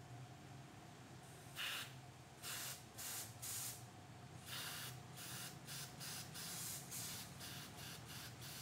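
Compressed-air blow gun fired in about a dozen short hissing bursts, starting about a second and a half in, blowing dirty fuel out of a Toyota Avanza's in-tank fuel pump and filter assembly to clean the filter.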